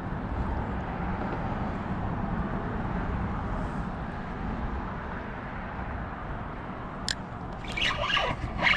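Steady low outdoor rumble and hiss. About seven seconds in comes a single sharp click, and near the end a louder clatter of quick strokes begins.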